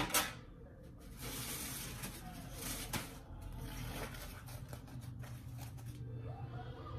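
Faint rustling and handling noise, with a couple of soft knocks right at the start and another about three seconds in.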